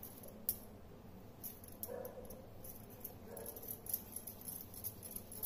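Quiet hand handling of soft dough being pinched into small balls on a steel board, with a few sharp clicks. Two short whining sounds come about two and three seconds in.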